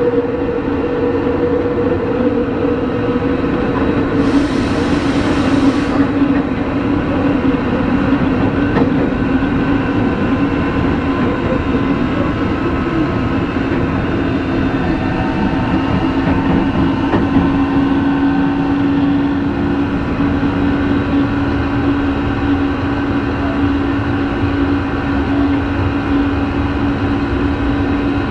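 Tokyo Metro 03 series subway train running, heard from its chopper-controlled motor car: a steady whine from the traction equipment over wheel and rail noise. A higher tone fades out about four seconds in while a lower one carries on, and there is a short hiss at about the same time.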